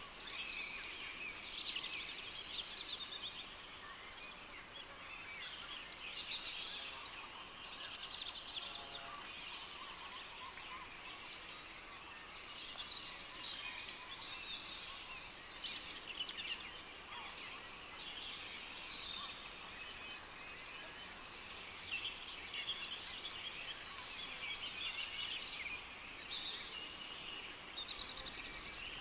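Rainforest ambience: a cricket chirping in a steady high-pitched rhythm, about three chirps a second, that pauses for a couple of seconds about four seconds in, over many birds calling and twittering.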